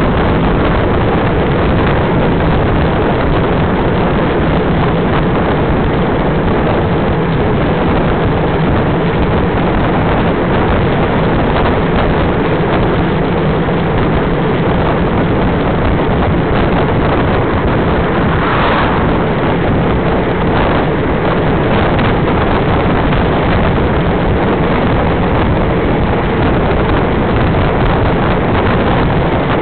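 Steady wind rush on the microphone of a bike-mounted camera riding at race speed in a cycling bunch, with road-bike tyres running on tarmac beneath it.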